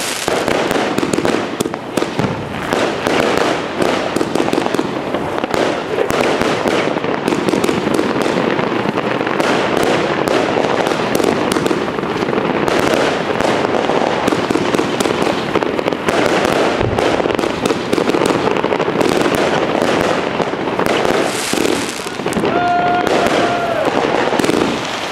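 Rubro Golden Tarantula 140-shot fan cake firing: a rapid, continuous stream of shots launching and bursting, with no break.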